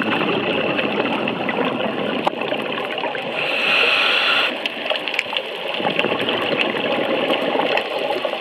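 Underwater sound through a diver's camera housing: steady bubbling water noise from scuba breathing, with a louder hiss of the regulator for about a second around three and a half seconds in. Scattered faint clicks run through it.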